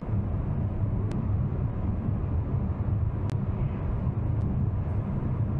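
Steady low rumble of a car driving at highway speed, tyre and engine noise heard inside the cabin, with a few faint clicks.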